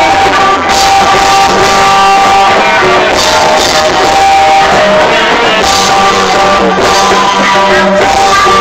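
Loud live music led by guitar, with held melody notes changing every second or so.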